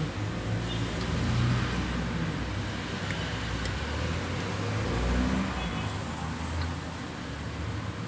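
Low, steady rumble of passing road vehicles, swelling about a second in and again about five seconds in.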